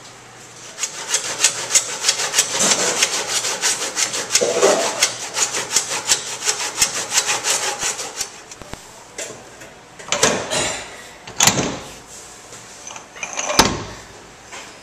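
Fast, even back-and-forth hand sawing for about seven seconds, then a few separate heavy clunks as the commercial garbage disposal is worked loose and lifted out.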